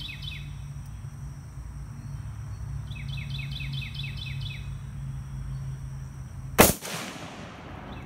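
A single AR-15 rifle shot, loud and sharp with a short echoing tail, about two-thirds of the way in. Before it, a bird repeats a quick run of short, falling chirps twice.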